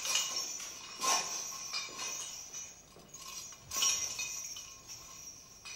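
Several light clinks, each followed by a short ringing tone. The clearer strikes come at the start, about a second in, and near four seconds.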